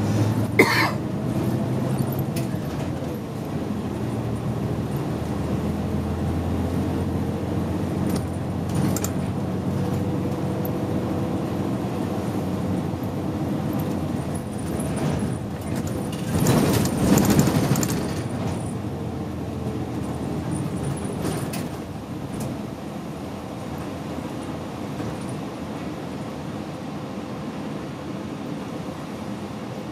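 City route bus heard from inside the cabin while driving: the engine running steadily, with light clicks and rattles from the cabin. A louder rush of noise rises for about two seconds past the middle.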